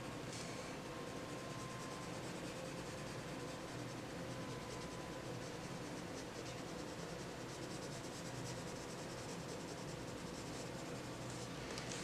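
Prismacolor colored pencil in pink scratching softly on paper in quick repeated shading strokes, blending over an earlier layer of red.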